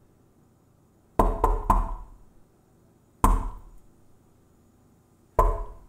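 Knocking on an apartment door: three quick raps about a second in, then a single hard knock a little past three seconds and another near the end, from someone at the door who keeps knocking while nobody answers.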